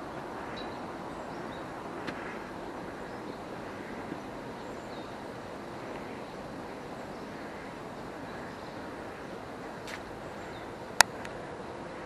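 Steady outdoor background hum of distant city traffic, with a few faint ticks and one sharp click near the end.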